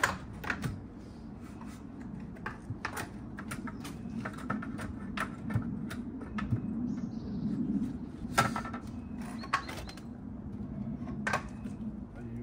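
Irregular knocks and taps, a second or so apart, from work on a timber fence post being set and levelled, over a low steady rumble.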